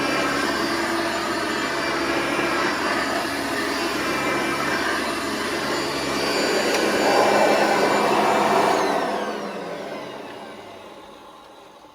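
Hoover Elite Sprint bagged upright vacuum running, with a slight pitched whine that the owner guesses is normal for this budget model. It gets louder briefly around seven seconds in, then is switched off, and the motor winds down with its whine falling in pitch and fading near the end.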